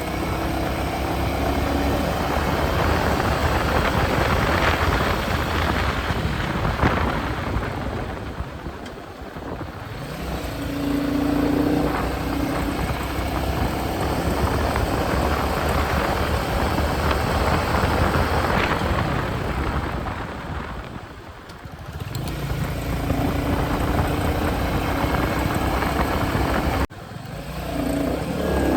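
Royal Enfield Meteor 350's single-cylinder engine and exhaust running under way at cruising speed. Twice the sound dips as the throttle eases, then swells again as the engine pulls back up with a rising note. There is a brief sudden break in the sound near the end.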